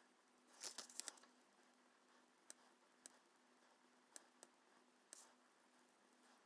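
Soft 6B graphite pencil on paper, faint: a short run of scratchy strokes about a second in, then a few light taps and one brief scratch.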